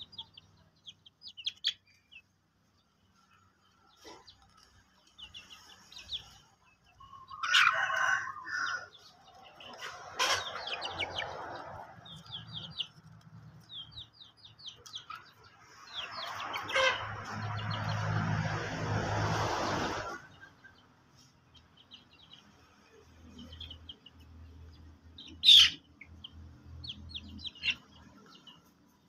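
Chickens calling: many short, high chirps scattered throughout, with a few louder calls, the loudest a sharp high call near the end. A few seconds of broad noise run from just past the middle.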